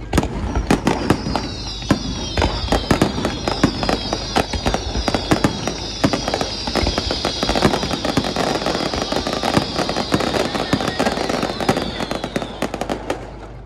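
Fireworks display: a dense, rapid crackle of small bursts, with many overlapping whistles that each fall in pitch, stopping about a second before the end.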